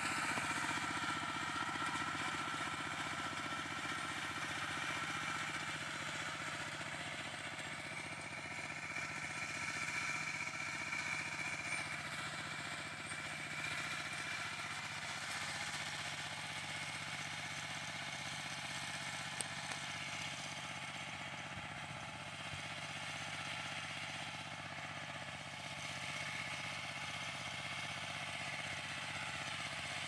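Small engine of a walk-behind hand tractor running steadily as it works a ploughed field.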